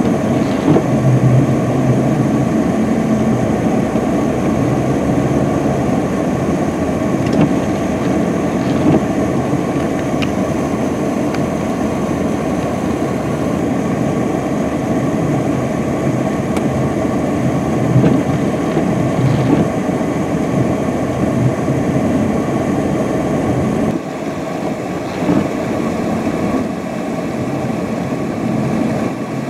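UPS delivery truck's engine running under load as its rear wheels spin and churn through deep snow, with steady wind and road noise. The sound gets a little quieter about 24 seconds in.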